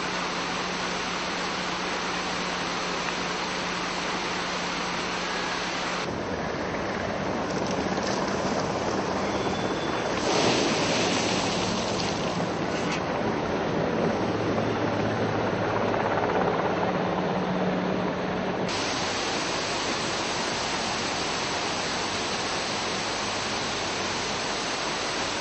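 Steady rushing of flash-flood water, an even noise that changes abruptly with edits about six seconds in and again about two-thirds of the way through, louder for a few seconds near the middle.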